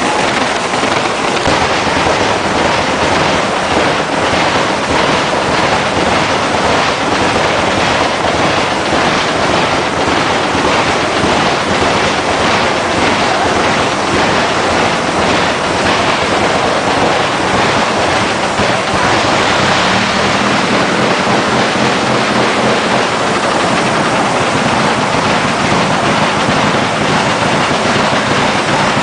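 Hino K13C inline-six turbocharged engine, converted from diesel to run on CNG alone, running loud and steady under test; its low note firms up about two-thirds of the way through.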